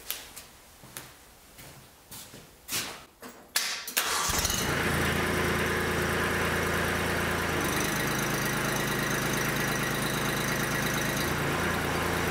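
A few knocks and clicks, then about four seconds in the Kubota B2261 compact tractor's three-cylinder diesel engine starts and runs steadily. Its note shifts slightly around eight and again around eleven seconds in while the front three-point hitch is worked hydraulically.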